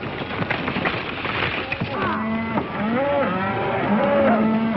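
A clatter of hooves for about the first two seconds, then a herd of cattle mooing, several long calls overlapping.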